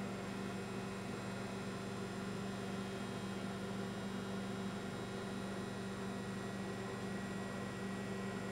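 Steady low electrical mains hum over a faint hiss, unchanging throughout.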